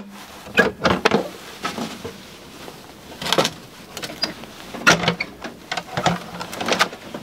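Clunks and knocks of the tractor's sheet-metal battery covers being lifted and handled, about eight short sharp knocks at uneven intervals.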